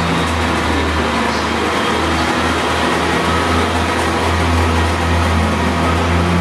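Class 142 Pacer diesel railcar running, giving a loud, steady low drone with overtones: the odd noise the unit is making.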